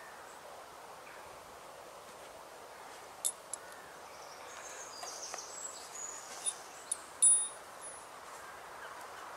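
A few light clicks and short, high ringing clinks, the loudest about seven seconds in, over a steady faint outdoor hush.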